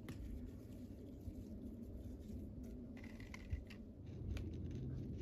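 Faint, scattered crisp clicks and snaps of leafy herb stems being harvested, over a low background rumble that grows a little louder after about four seconds.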